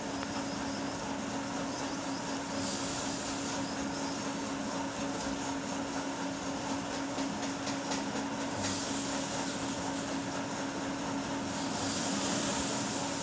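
Steady mechanical hum with a constant low tone, and faint intermittent scratching of a ballpoint pen writing on paper.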